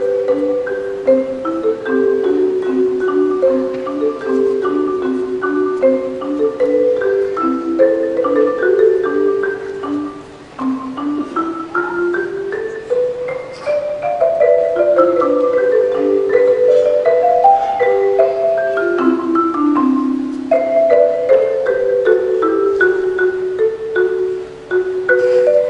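Marimba played with mallets: a melody of quick struck notes over a lower part, with rising and falling runs.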